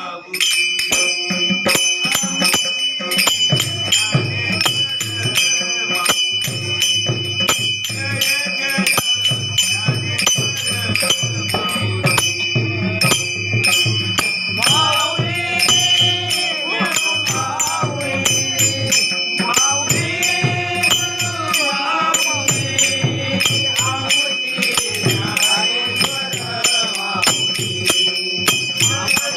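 Devotional bhajan music: metal hand cymbals ringing in a fast, steady rhythm over a low drum beat, with voices singing in two stretches around the middle.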